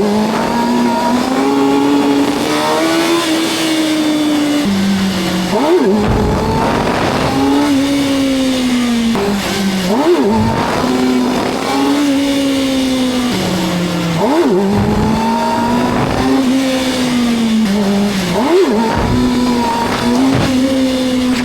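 Kawasaki ZX-6R 636 inline-four engine running at steady high revs, with a brief sharp rise and fall in pitch about every four seconds.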